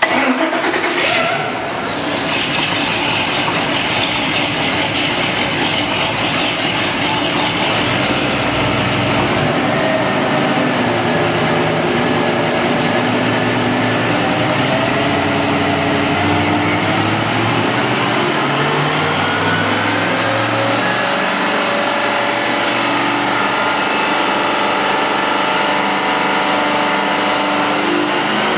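Marine Power 5.7-litre Vortec-based V8 inboard engine (multi-port injected) just started and running on a test stand. There is a brief falling whine in the first two seconds, then steady running; its pitch rises briefly about two-thirds of the way through and settles again.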